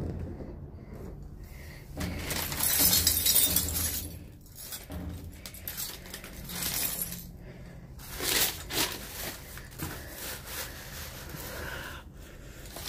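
Rummaging inside a steel dumpster: scraping and crunching of debris on the metal floor, with glassy clinks and breaking-glass sounds. The noise comes in irregular spells, loudest about two to four seconds in, with sharp clattering hits around eight seconds.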